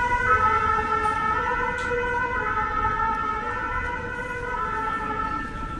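Emergency vehicle siren sounding in a steady, high-pitched tone over street noise, growing fainter toward the end.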